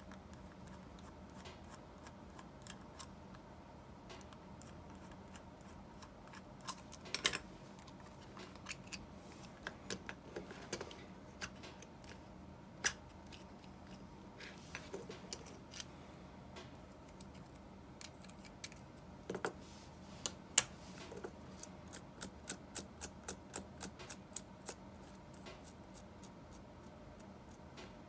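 Small metal clicks and taps from an Abu Garcia Ambassadeur 1500C baitcasting reel being taken apart by hand: a screwdriver at the sideplate screws, and the aluminium sideplate and other metal parts being handled and set down. The clicks come scattered at first, with a few sharper ones, and then a quick run of light clicks near the end.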